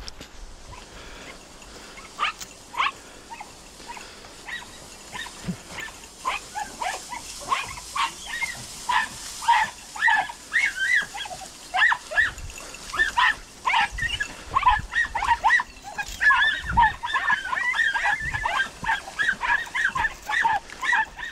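Podenco hunting hounds yelping in short, high-pitched cries that come thicker and overlap from about six seconds in, several dogs giving tongue as they work a rabbit's trail.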